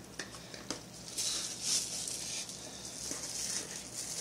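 Plastic bubble-wrap sleeve crinkling and rustling as it is handled around a folding knife, in a few soft irregular spells with faint clicks.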